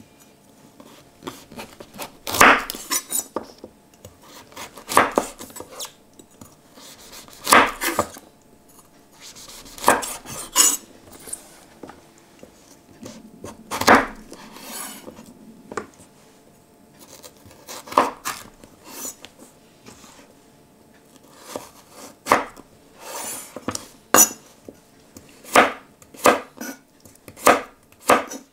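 Chef's knife cutting a raw carrot on a wooden cutting board: slow single cuts every two to four seconds as it is sliced lengthwise into sticks, then quicker chops in the last few seconds as the sticks are diced into cubes.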